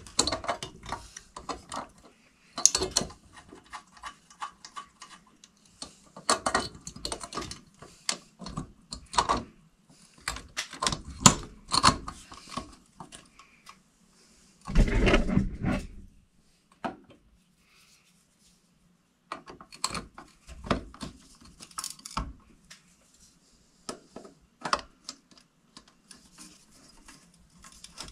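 Irregular clicks, knocks and rattles of a porcelain lampholder and its metal mounting screws being handled and fitted against a metal electrical ceiling box. A louder rubbing scrape lasts over a second about halfway through.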